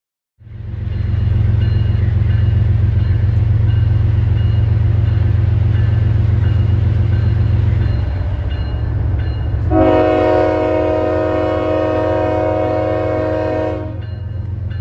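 CSX freight train approaching, its diesel locomotives giving a steady low rumble. About ten seconds in, the lead locomotive sounds its multi-chime air horn in one long chord of about four seconds, a warning for the road grade crossing.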